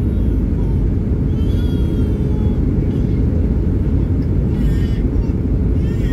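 Airbus A319 cabin noise heard in flight from a window seat over the wing: a steady, deep rumble of engines and airflow.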